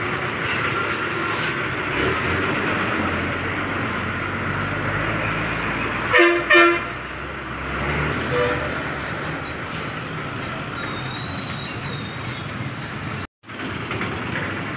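Bus engines running as buses pull past close by in busy bus-stand traffic. About six seconds in, a vehicle horn gives two short blasts, the loudest sound, and a fainter short horn note follows about two seconds later.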